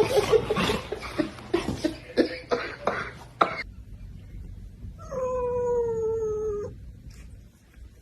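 Noisy yelping and scuffling that stops abruptly about three and a half seconds in. Then a cat gives one long, drawn-out meow that falls slightly in pitch.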